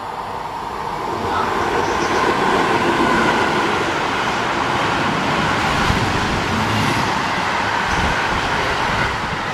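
Freight train of two-tier car-carrier wagons running through the station: a loud, steady rush of wheels on rail that builds over the first second or so as the train reaches the platform, with a few low thuds in the second half.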